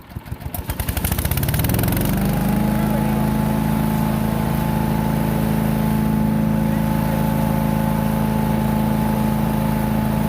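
Small gasoline engine of a wood chipper starting on a little choke. It cranks in quick even pulses, catches and rises in speed within about two seconds, then runs steadily.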